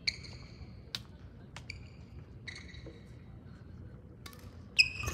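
Sneakers squeaking on a sports hall floor: several short, high squeaks with a few sharp clicks between them, the loudest squeak near the end.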